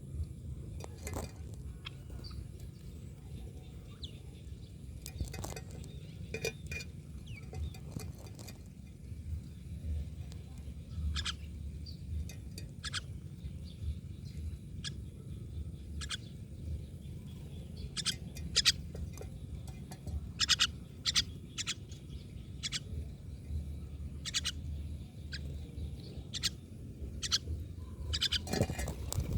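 Myna birds giving short, sharp calls at irregular intervals, coming more often in the second half, over a steady low hum.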